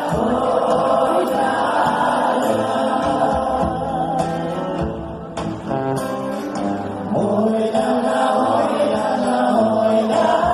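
Live concert music: a band playing with singing voices, the sound dipping briefly a little past the middle.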